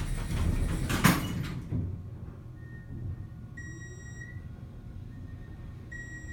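Elevator doors sliding shut, closing with a knock about a second in. The geared traction elevator then starts down: a low hum, with a thin high-pitched whine that comes and goes.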